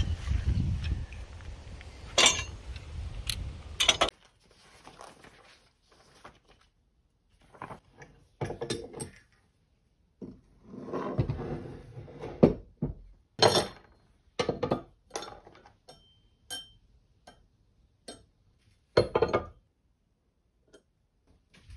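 Metal hardware handled on a wooden workbench: leaf springs, U-bolts, nuts and washers clinking and knocking in separate, irregular clicks and clunks with short pauses. In the first four seconds a low rumble with a few sharp clicks, which cuts off suddenly.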